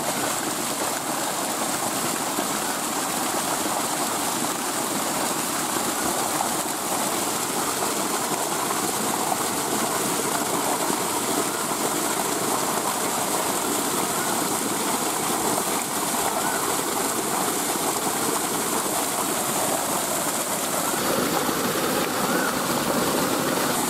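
A strong jet of water gushing steadily from a pipe outlet and splashing onto the ground, running without a break.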